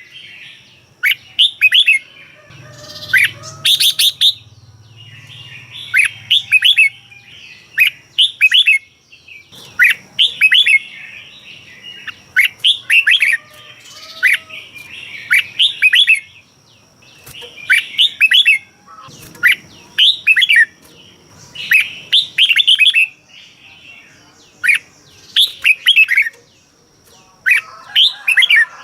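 Red-whiskered bulbul singing: short phrases of quick whistled notes, repeated every second or two, with a faint steady high tone behind.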